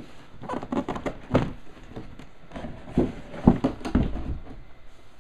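Cardboard box and plastic-bagged model-kit parts being handled: two clusters of knocks and clatter, one about half a second in and another around three seconds in.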